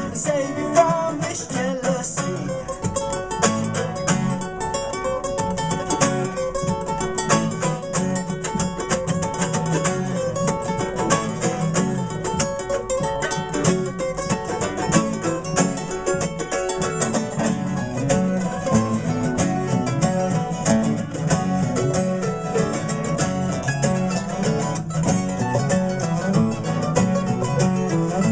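Live acoustic string band playing an up-tempo passage: a nylon-string guitar and a steel-string acoustic guitar are picked and strummed together, and a mandolin joins in.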